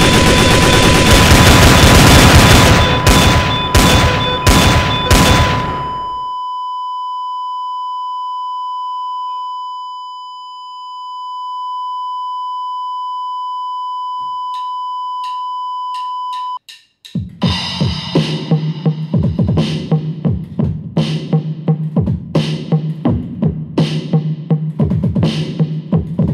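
Gunfire and loud clatter for the first several seconds, with a steady high beep sounding under it. The beep carries on alone as a patient monitor's flatline tone for about ten seconds and cuts off suddenly. Then music with a steady drum beat starts.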